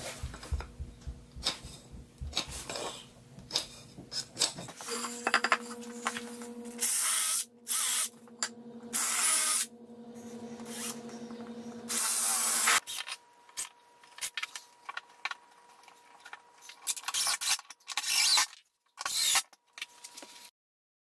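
Woodworking on pine boards: wood scraping and rubbing, with several loud bursts of rushing noise up to about a second long through the middle and scattered knocks and scrapes later. A low steady hum runs under the first half.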